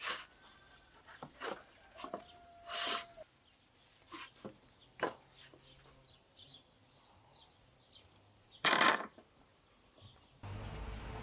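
Scattered knocks, clatters and rubbing from handling a ladder and a long pole during garden work, with louder scraping noises about three seconds in and again near nine seconds. A steady hiss sets in near the end.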